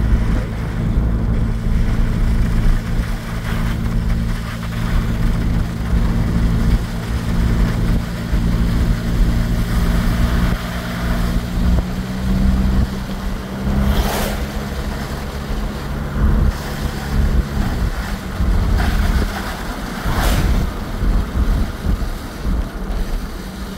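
Inside a car driving on a wet road: steady engine hum and low road rumble, with two brief swooshes about six seconds apart.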